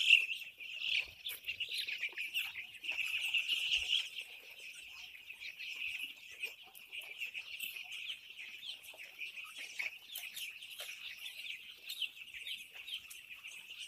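A shed full of week-old chicks peeping continuously: many high cheeps overlapping into one dense chorus, a little louder for the first four seconds.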